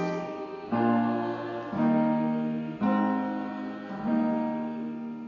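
Soft instrumental music: held chords struck about once a second, four times, the last one dying away near the end.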